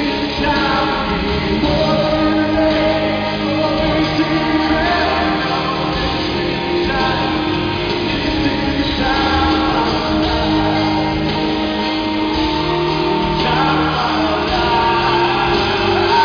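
Live pop-rock song: a male lead singer sings over a full band with guitars, recorded from the audience in an arena.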